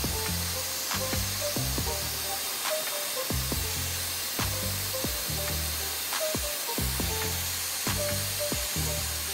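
Background music with a beat and bass line over the steady hiss of a hair dryer blowing hot air onto the edge of an iPhone to soften the screen adhesive.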